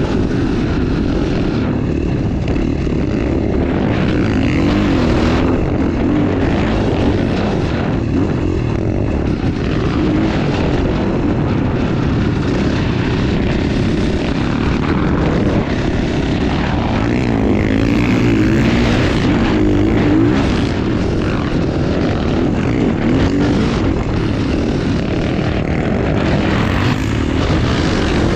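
KTM 450 single-cylinder four-stroke dirt bike engine running hard, its revs rising and falling repeatedly, with wind rushing over the microphone.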